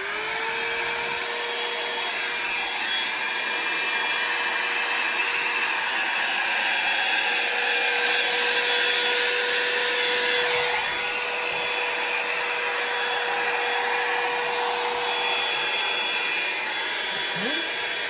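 A Revlon handheld hair dryer, used without its nozzle attachment, switches on and runs steadily: a rush of air over a steady motor hum that rises in pitch for a moment at the start as the motor comes up to speed.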